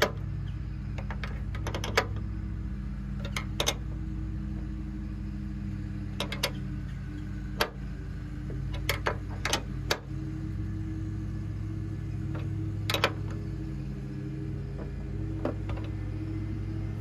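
Steel 16 mm combination wrench clinking against a bolt and nut while tightening a tailgate ball-joint stud: a dozen or so sharp metallic clicks at irregular intervals, over a steady low mechanical hum.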